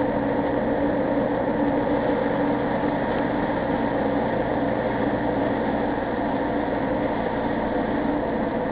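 Steady engine and road noise heard from inside a moving vehicle, an even rumble with a low hum.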